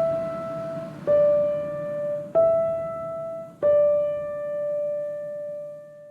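Slow background piano music: single sustained notes struck about a second apart, the last one left ringing and fading away near the end.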